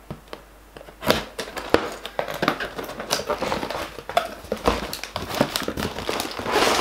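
Cardboard LEGO set box being opened: scissors slitting the sealing tape, then the flaps pulled and torn open. After a quiet first second come many short scratchy crackles, thickening into a dense rustle near the end.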